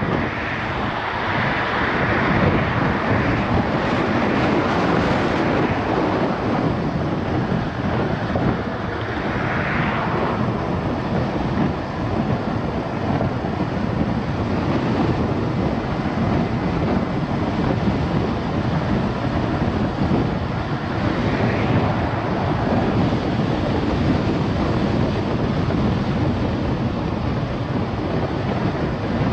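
Steady road and wind noise from a car driving along a highway, swelling briefly a few times.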